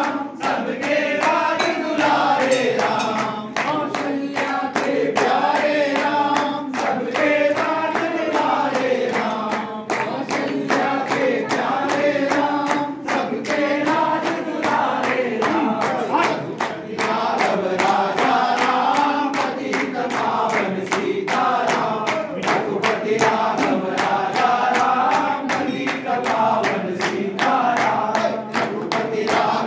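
A group of men singing a Hindu devotional bhajan to Lord Ram together, with steady rhythmic hand-clapping keeping the beat.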